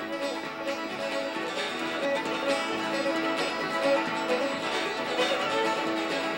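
Instrumental background music with plucked string instruments playing a run of short notes.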